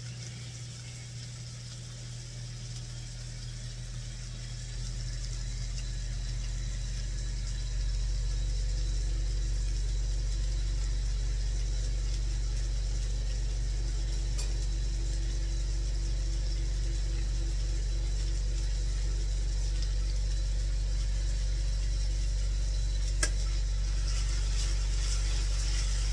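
Steady low hum of a kitchen appliance's electric fan or motor, stepping louder twice, about five and eight seconds in, with a single click near the end.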